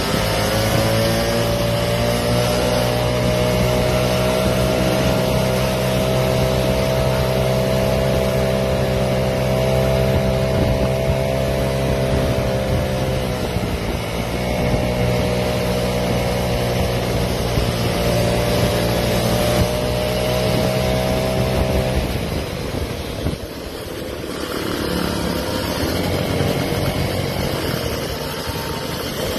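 Small motorized stand-up scooter running along the road. Its pitch climbs at the start, holds steady, dips briefly about halfway, then falls away about three quarters through, leaving road and wind noise.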